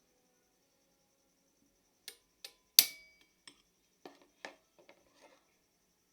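Small metal parts being handled and set down, giving a string of sharp clicks and taps. The loudest, about three seconds in, rings briefly like metal.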